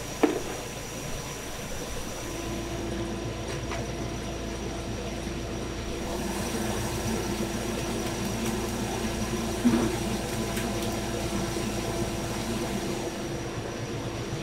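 Steady hum of workshop machinery, with a sharp knock just after the start and another about ten seconds in.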